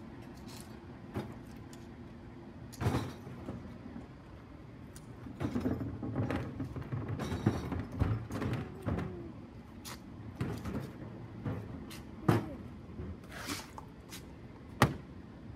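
Rear-loading garbage truck idling while plastic wheelie bins are tipped by hand into its steel hopper: a string of knocks and bangs of bins and lids against the hopper edge as rubbish tumbles in, with a dense run of knocking in the middle and one sharp bang near the end.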